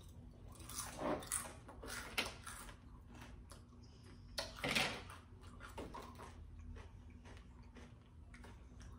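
Faint mouth sounds of someone tasting food off a spoon: short smacks and licks with a few soft clicks, the loudest about four and a half seconds in.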